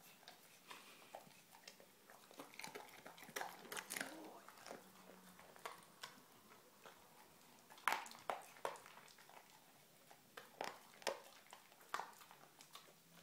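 A dog chewing and crunching a chicken bone in irregular bites, the loudest crunch about eight seconds in.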